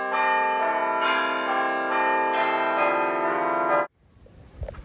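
Bell-like chimes: several sustained ringing notes entering one after another and overlapping, cut off abruptly about four seconds in. Low wind-like rumble follows.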